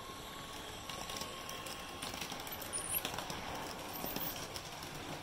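Model electric multiple unit (Piko Talent 2) running along layout track, its LokSound 5.0 sound decoder playing the train's running sound through its small onboard speaker. A steady whine fades out in the first couple of seconds, and scattered clicks from the running gear come through a steady hiss.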